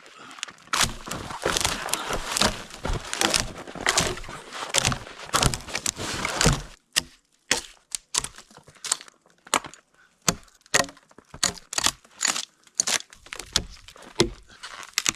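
Dry wood cracking and snapping: a dense run of sharp cracks for about seven seconds, then sparser single cracks.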